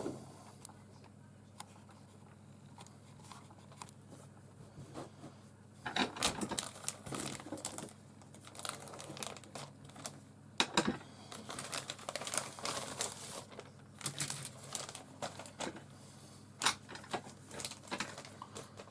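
Plastic bag crinkling and rustling as model-kit sprues are handled and pulled out of it, starting about six seconds in.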